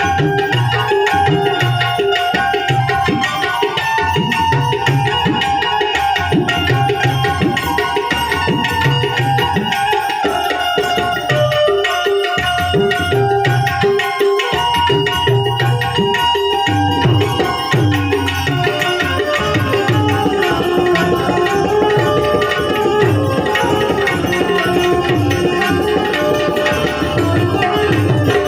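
Instrumental interlude of Gujarati santvani devotional music: tabla keeping a steady rhythmic beat under a sustained harmonium melody, with no voice.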